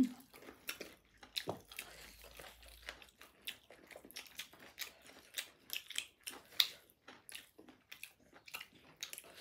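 Chewing and mouth sounds of people eating buffalo-meat biryani: a quick, irregular run of small wet clicks and smacks.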